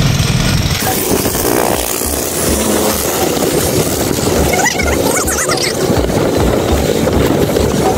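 Motorcycle running at riding speed with wind buffeting the microphone and passing street traffic.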